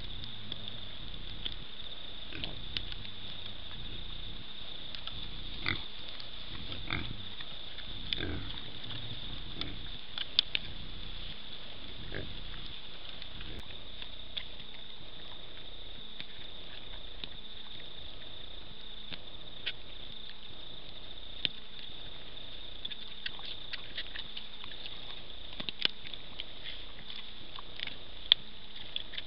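Feral pigs grunting a few times as they feed close by, with scattered short clicks and a steady high hiss.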